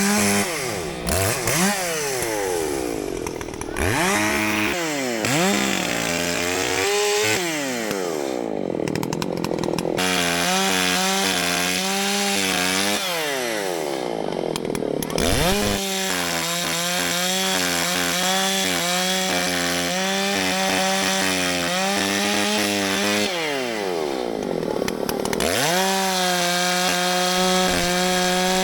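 Two-stroke chainsaw bucking downed tree trunks. The engine revs up and down several times in the first few seconds, then runs held at full throttle through long cuts, with brief drops in revs between them.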